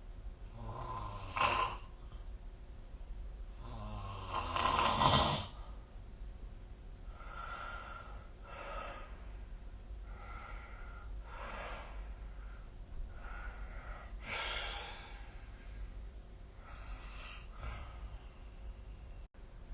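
A sleeping person snoring: a short snort about a second and a half in, then a louder, longer snore with a low rumble around four to five seconds in, followed by quieter breaths every second or two.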